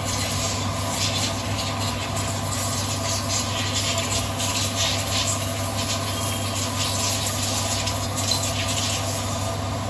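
A steady low hum with light clicks and rubbing as small engine parts, a washer and spring, are handled and fitted by hand.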